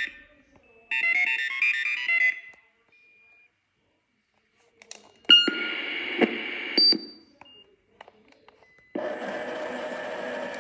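Tomy Omnibot 5402 toy robot beeping out quick sequences of stepped electronic tones, twice in the first two seconds. About five seconds in there is a click and a rougher sound for a couple of seconds. Near the end a steady mechanical whirring starts.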